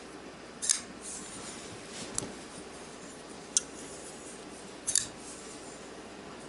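Ruike P801 folding knife's blade being flicked open and shut to test the action of its freshly adjusted pivot: four sharp metallic clicks about a second and a half apart as the blade snaps into place.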